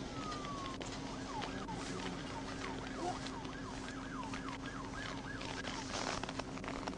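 Faint emergency-vehicle siren in the distance, a slow falling wail near the start, then a rapid yelp of about three sweeps a second, over a steady low hum.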